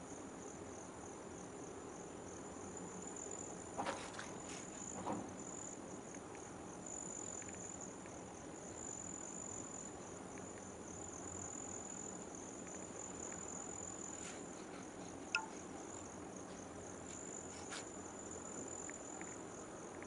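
Insects trilling steadily in a high, softly pulsing tone over a low background rumble, with a few sharp clicks, the loudest about 15 seconds in.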